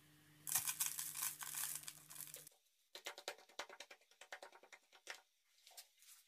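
Plastic spoon stirring thick yogurt with chopped vegetables in a plastic bowl: a run of wet squelching and scraping clicks, stronger for the first two seconds, then fainter and scattered.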